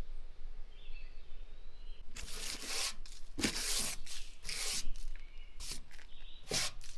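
Irregular bursts of scratchy rustling and rubbing that start about two seconds in, with a bird chirping faintly before them.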